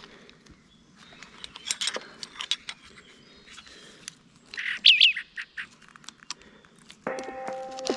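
Birds singing in woodland, with one loud curved call about five seconds in, over a scatter of small metallic clicks from the climber's carabiner and rope ascender being handled. Background music starts about seven seconds in.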